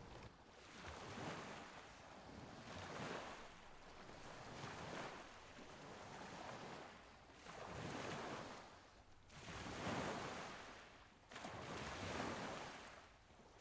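Waves washing in: a soft rushing noise that swells and fades every two seconds or so.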